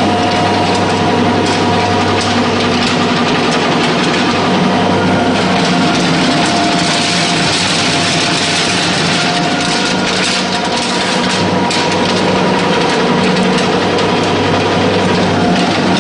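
22 kW animal-feed pellet mill running steadily under load: a constant electric-motor hum with a steady whine over it, plus a rushing, gritty noise of feed being pressed into pellets that grows louder for a few seconds midway.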